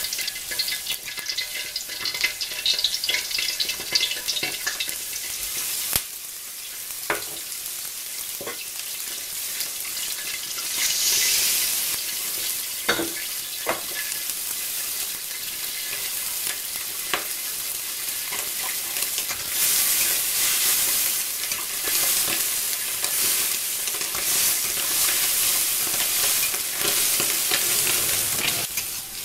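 Tomatoes and scrambled egg sizzling in hot oil in a wok as a spatula stirs them, a steady high hiss broken by a few sharp knocks of the spatula against the pan.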